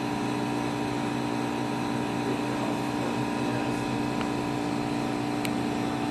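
A steady mechanical hum made of several held tones over a low noise, with two faint ticks about four and five and a half seconds in.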